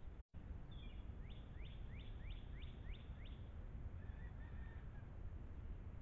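Northern cardinal singing a run of about seven clear downslurred whistles, roughly three a second, over a steady low rumble.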